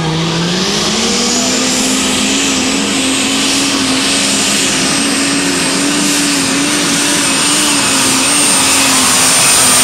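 Light super stock pulling tractor's turbocharged engine at full power pulling the sled. The engine note climbs in the first second and then holds high and steady, with a thin high whistle rising slowly over it, growing a little louder near the end.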